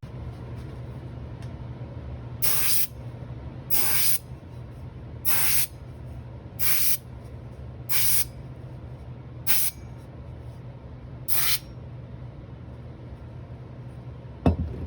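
Old Paasche airbrush running at about 80 psi, giving seven short, sharp hisses of air and ink, each under half a second and spaced one to two seconds apart: quick bursts that splatter the ink outward. A low steady hum runs beneath, and there is a single knock near the end.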